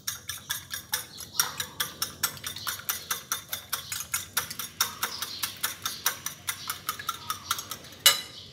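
Wire whisk beating eggs in a ceramic bowl: a fast, even run of clicks and scrapes against the bowl, about five or six a second, with one louder clink near the end.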